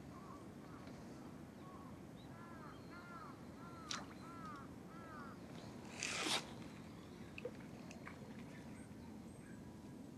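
Faint outdoor ambience beside still water: a series of short chirps, a click, and a brief noisy rustle about six seconds in that is the loudest sound.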